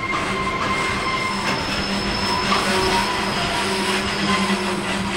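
JR Freight container wagons rolling past on steel rails: a steady wheel-on-rail rumble with thin, high steady squeal tones from the wheels.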